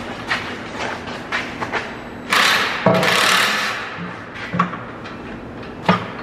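Heavy metal thuds and knocks from bolting roller baskets onto a farm implement, with a loud rush of noise from about two and a half to three and a half seconds in.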